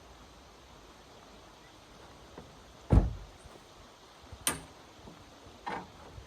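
A few knocks and clunks over a faint steady hiss: a heavy low thump about three seconds in, then a sharper knock and a weaker one.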